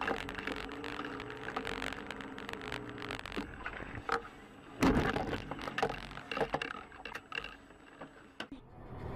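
Car cabin noise picked up by a dashcam: a steady low hum with many short clicks and knocks, and one loud thump about five seconds in.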